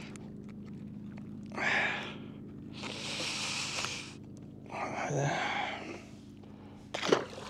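A man breathing out heavily three times, each a breathy rush of about a second, over a steady low hum.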